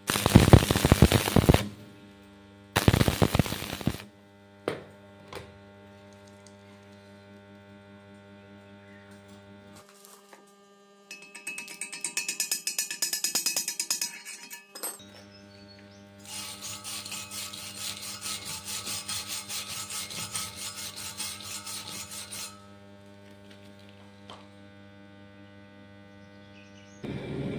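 Stick-welding arc crackling and sputtering in several bursts, the longest lasting about six seconds, with a steady electrical hum between them.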